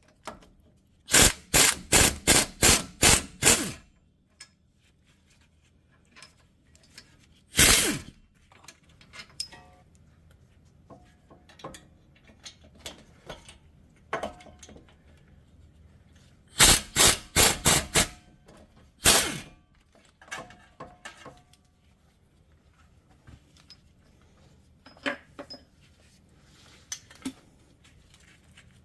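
Hammer blows on metal. A quick run of about seven strikes, a single blow, another run of about six, then one more blow, with lighter taps and clinks in between.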